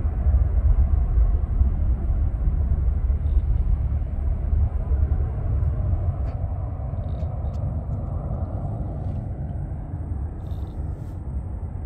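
Aircraft engine rumble that slowly fades as the plane moves away.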